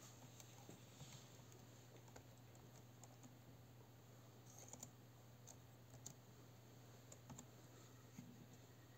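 Faint, scattered key taps on a laptop keyboard as a player's name is typed into the scoreboard's web form, over a low steady hum.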